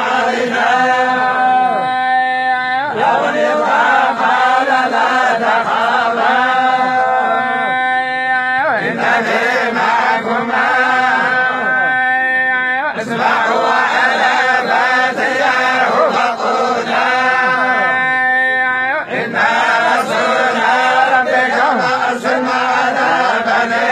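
A group of men reciting the Quran together in unison, chanting in long, drawn-out phrases of several seconds each, with a short break between phrases.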